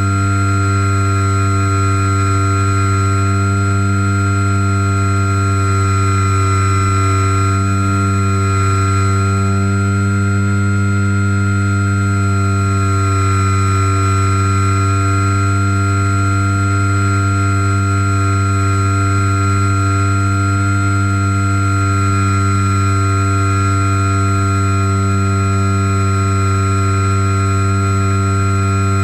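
Electric motor and spinning propeller of a HobbyZone Super Cub RC plane in flight, heard close up from a camera mounted on the plane. It gives a steady hum with a high whine above it and holds an even pitch throughout.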